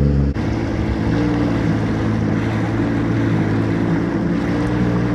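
Jet ski engine running steadily under way, with water rushing and splashing along the hull. The engine note changes abruptly a moment in.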